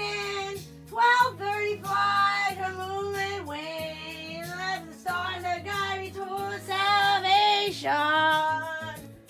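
Music: a high voice singing a melody in short phrases over steady backing chords, with a held, wavering note near the end.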